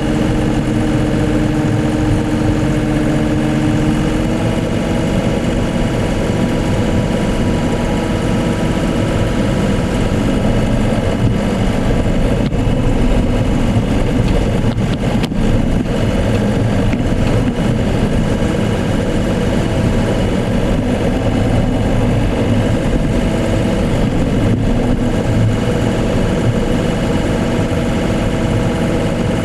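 Case CX39B mini excavator's diesel engine running steadily, heard up close from on the machine. Its note shifts slightly about four seconds in.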